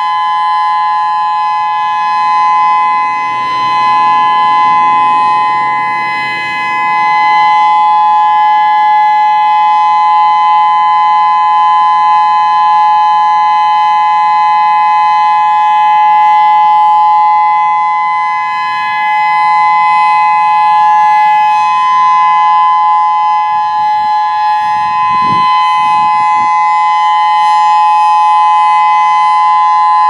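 Whelen WPS-3016 electronic warning siren sounding a steady alert tone: two unchanging pitches held together. The loudness swells and dips as the rotating siren head turns.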